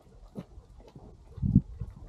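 Footsteps on a concrete sidewalk, irregular low knocks with a heavier thump about one and a half seconds in.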